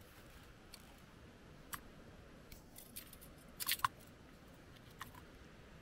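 Brass UCO candle lantern being handled and set on a stone: a few sharp metallic clicks and taps, with a quick cluster of clicks a little past halfway as the loudest.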